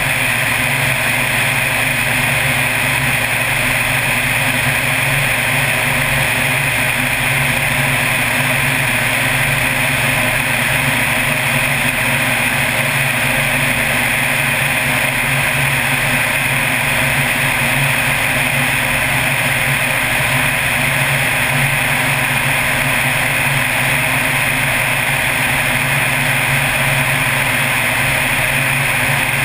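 Floatplane engine and propeller running steadily in flight, heard with a strong rush of wind over the outside-mounted camera.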